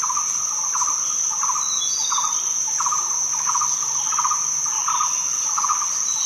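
Night insect chorus: a steady high cricket trill, with a lower pulsing chirp repeating about every 0.7 seconds.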